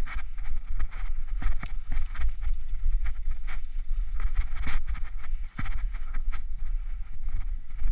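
Bicycle riding along a rough, muddy dirt trail: wind buffeting the camera's microphone as a steady low rumble, with frequent irregular knocks and rattles from the bike jolting over the bumps.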